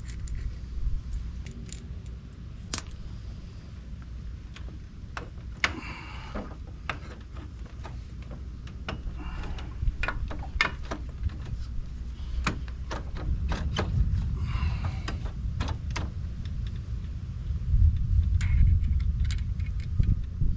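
Metal tools and parts clinking and tapping irregularly while working on an ATV's front hub and axle, with a few short jingling runs, over a steady low rumble that grows louder near the end.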